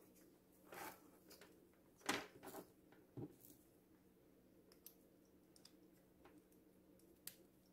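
Near silence with a few faint clicks and rustles of a USB endoscope cable and its OTG adapter connector being handled, the loudest about two seconds in.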